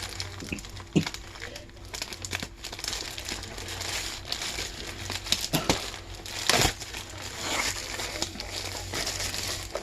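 Packaging being handled and opened: irregular crinkling and rustling with sharp crackles now and then.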